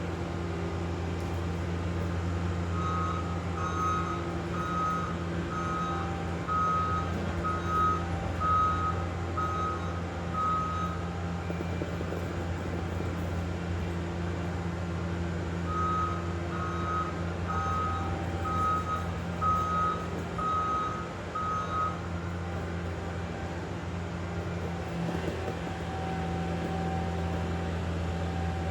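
Diesel engine of a tracked construction machine running steadily, with its back-up alarm beeping about once a second in two stretches as the machine reverses, starting about three seconds in and again around the middle.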